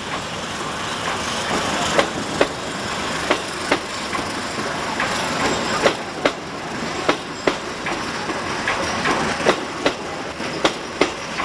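Passenger train's wheels clacking over rail joints and switch points, the clacks often coming in pairs less than half a second apart, over a steady rolling rumble, heard from aboard the moving train.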